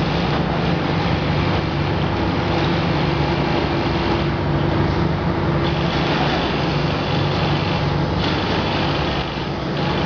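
Steady industrial drone of a steel melting furnace shop: a low hum with a higher steady tone over a broad rushing noise, unbroken throughout, dipping slightly near the end.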